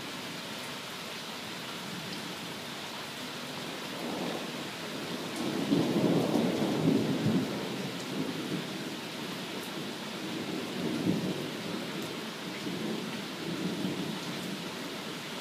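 Steady rain hissing down on a lawn and brick patio, with a long roll of thunder that swells about four seconds in, is loudest shortly after, then rumbles on in a few weaker waves.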